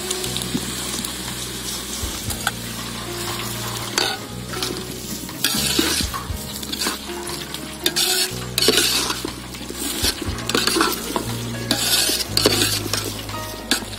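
Metal ladle stirring and scraping vegetables and masala in an aluminium pot, with the mixture sizzling; the scraping strokes come in short bursts, more of them in the second half.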